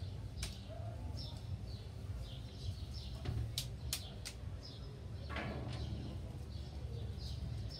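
Small birds chirping in short repeated calls over a steady low rumble, with a few sharp clicks around the middle.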